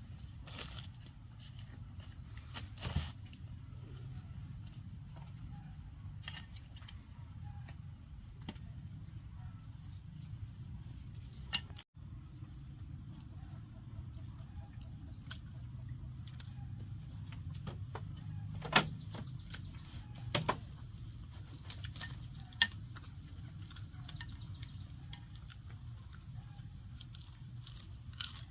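Steady high-pitched insect chorus over a low rumble, broken by a few sharp clicks or knocks, the loudest about two-thirds of the way through. The chorus drops out for an instant near the middle.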